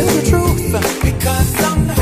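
A song with a steady beat and a sung melody.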